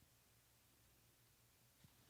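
Near silence: faint room tone with a low steady hum, and one soft faint tick near the end.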